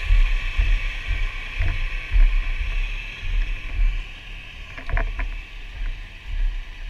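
Irregular low buffeting and rubbing on a helmet-mounted camera's microphone as the firefighter moves, over the steady running noise of fire apparatus. A few sharp clicks come about five seconds in.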